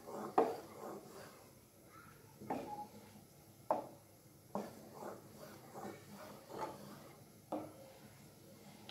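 Wooden spoon stirring thick crushed tomatoes in a metal frying pan, knocking and scraping against the pan about once a second, some knocks with a brief ring.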